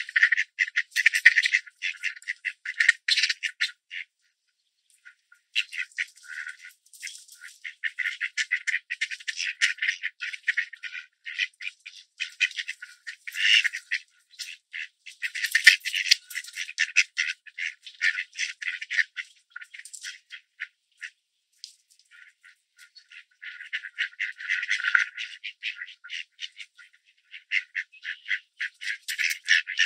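Mallards feeding on scattered birdseed, their bills making a rapid, rattling run of clicks as they dabble and peck through the grass. The clicking comes in long stretches with a couple of brief pauses.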